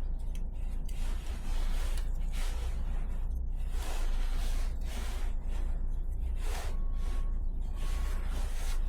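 An air compressor running, a steady low hum, under irregular rustling and stretching noises of thread-seal tape being pulled off its roll and wrapped onto a fitting's thread.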